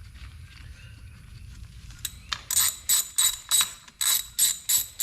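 Socket ratchet clicking in a quick run of about nine strokes, starting about two seconds in, as 8 mm bolts on a Honda Grom's side case are loosened.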